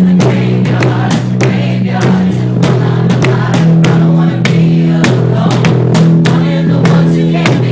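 A group of voices singing a song together over sustained low notes and a steady beat of sharp strokes, about two a second.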